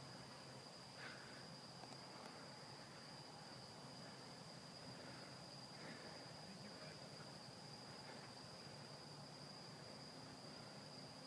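Faint, steady high-pitched trill of night insects.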